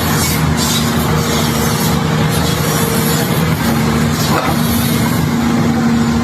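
Excavator's diesel engine running steadily under load, its pitch stepping up slightly about three and a half seconds in, with a few short hisses.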